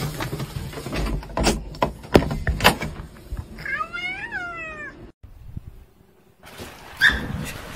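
A door being opened with a few clicks and knocks, then a domestic cat's single meow about four seconds in, rising and then falling in pitch: a greeting meow.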